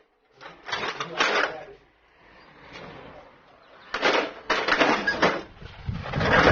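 Metal clattering and rattling in three rough bursts of about a second each, from steel parts being handled and knocked about.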